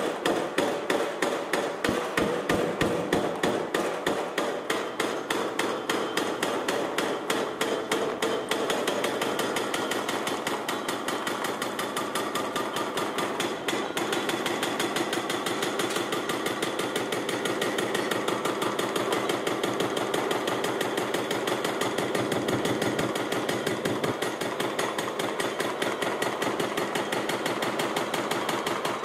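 A 4,000 kg hydraulic breaker hammer on an excavator pounding concrete, a rapid, steady run of blows.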